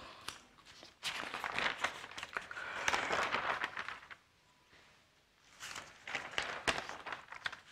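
Large newspaper pages rustling and crinkling as they are turned and smoothed flat, in two bouts with a short pause between.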